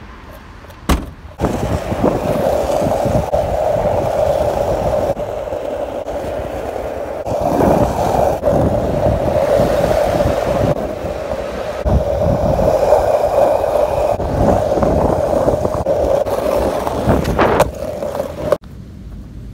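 A car's trunk lid shuts with a single sharp knock about a second in. Then skateboard wheels roll on pavement: a steady, rough rolling noise with a low rumble that swells and eases with speed, stopping abruptly near the end.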